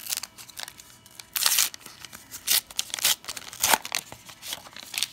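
Foil wrapper of a 1990 Upper Deck baseball card pack being torn open and crinkled by hand, in a series of short rips and crackles.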